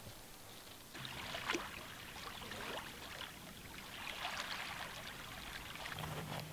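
Small waves lapping on a sandy lake shore: faint, irregular splashing that starts about a second in.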